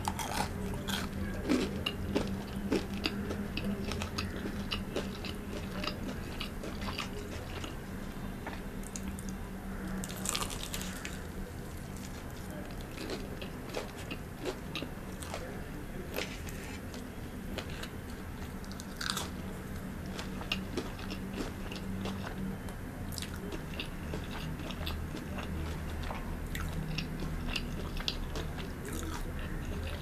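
Close-miked biting and chewing of a KFC Double Down burger, its crispy fried-chicken breading crunching and crackling in the mouth.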